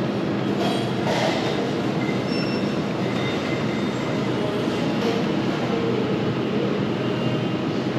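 Steady mechanical hum of convenience-store refrigerated display cabinets, their fans and compressors running.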